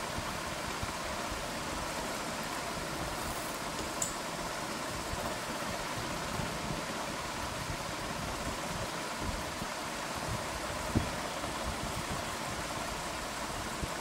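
Steady background noise, an even hiss and hum with no clear pitch, with a faint tick about four seconds in and a short soft thump about eleven seconds in.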